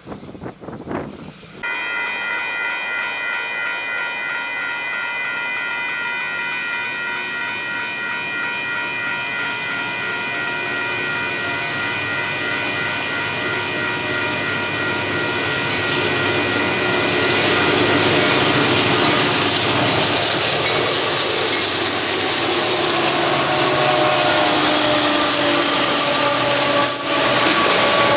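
A railroad grade-crossing bell rings steadily, starting about two seconds in. Under it the rumble and rail noise of a Union Pacific freight train of boxcars grows louder and becomes the loudest sound in the second half as the cars roll past the crossing.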